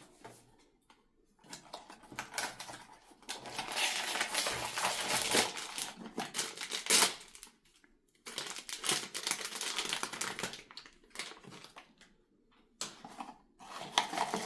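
Blind-box packaging being opened by hand: crinkling, crushing and tearing of the packaging in two long stretches, then a few short clicks and rustles near the end.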